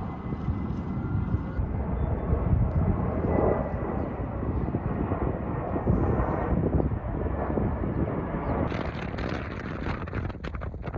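Steady low outdoor rumble. About two-thirds of the way through, a brighter hiss with a few clicks joins it.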